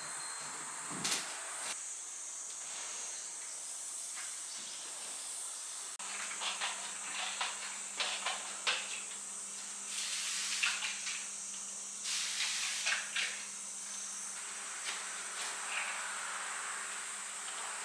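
Steady high-pitched insect buzz, with scattered clicks and two short hisses, and a low steady hum that starts about six seconds in.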